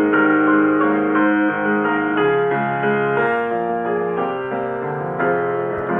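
Background piano music with held, overlapping notes.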